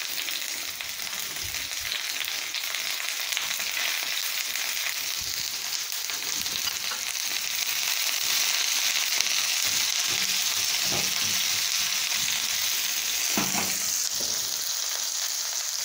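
Sliced onion sizzling steadily in hot oil on a heated sizzler plate, with the occasional light scrape and knock of tongs turning it.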